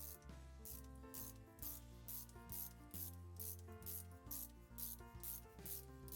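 Background music with a steady beat: low bass notes and a sharp, hissy percussion hit about twice a second.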